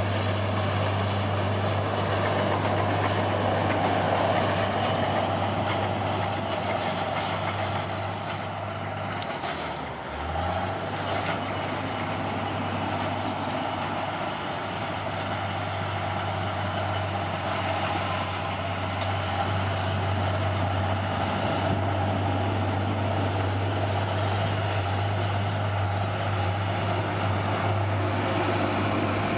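Caterpillar D6R bulldozer's diesel engine running steadily under load. About a third of the way in, its pitch and level sag briefly, as if lugging, then recover.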